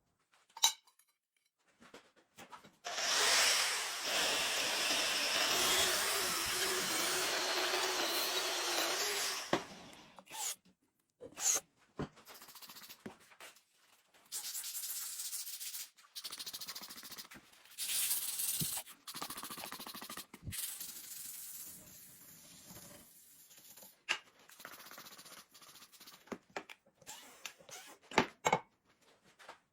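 Steel being worked with an abrasive or hot process, heard as a long stretch of loud hissing, rubbing noise about three seconds in. It is followed by shorter, quieter rubbing stretches with scattered sharp knocks and clicks.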